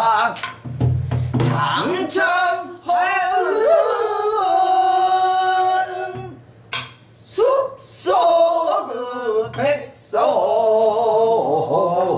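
A woman singing a pansori danga, with long wavering held notes and sliding pitches, while beating a buk barrel drum with a few strokes between phrases, the heaviest a low thump about a second in.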